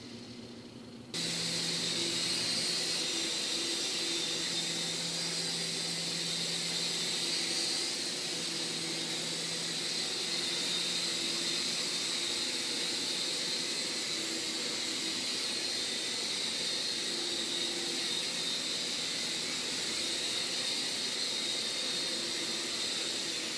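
World Tech Toys HeliCommand micro RC helicopter's electric motors and rotors whirring in flight: a high, steady hiss with a faint low hum that comes and goes. It spins up suddenly about a second in and hovers steadily.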